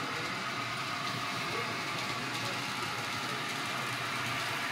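O gauge model trains running on the layout: a steady whir and rumble of motors and wheels on the track.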